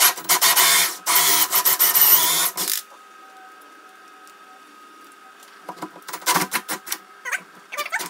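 Cordless drill spinning a hole saw through a wooden door: two loud runs of cutting in the first few seconds with a short break between them, then a few short stop-start bursts later on, as the cut is finished from the second side.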